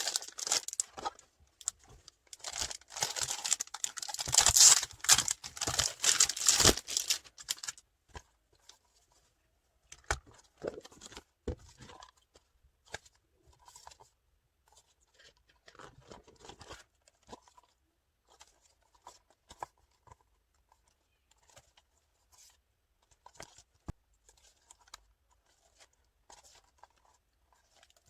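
Packaging being torn open and crinkled for several seconds, then sparse rustles, taps and clicks as the contents are handled.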